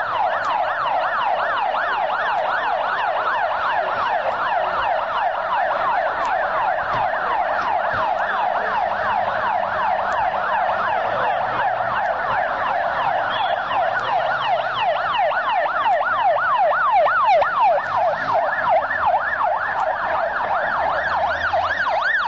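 Police vehicle sirens in a fast yelp, each sweep rising and falling about four times a second, with a second siren overlapping out of step through the middle.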